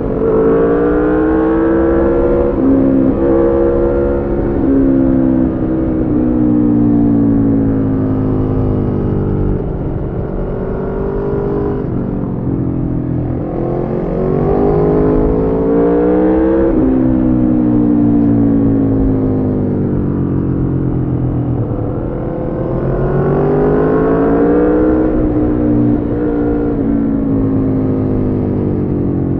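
Aprilia Tuono V4 motorcycle's V4 engine through a decatted Arrow slip-on exhaust, under way. The revs climb quickly three times, near the start, about halfway through and again past three quarters, and each time fall away slowly.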